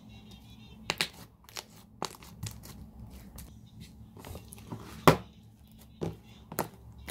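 Handful of over-watered slime being squeezed, stretched and pulled apart, making irregular sticky pops and clicks as it tears, the loudest about five seconds in. The slime has gone rippy from the excess water, so it breaks rather than stretches.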